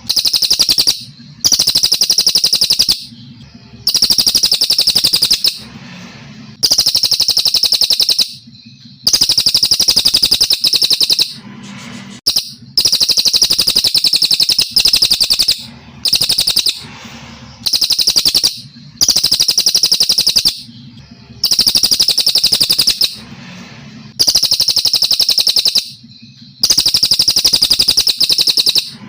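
Brown cililin, a Kalimantan songbird, singing loud, high-pitched, rapid trilled chirping phrases. Each phrase lasts one to two seconds and repeats after a short pause, over and over.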